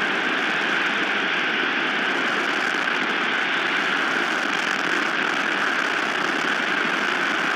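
Strong wind blowing across the nest camera's microphone: a loud, steady rushing noise without breaks.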